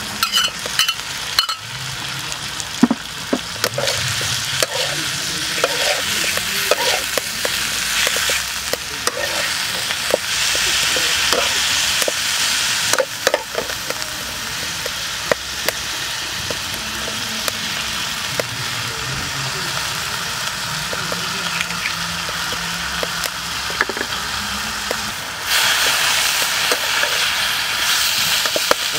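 Vegetables sizzling as they are stir-fried in a hot steel wok, with a metal spatula scraping and clicking against the pan. The sizzle grows louder near the end.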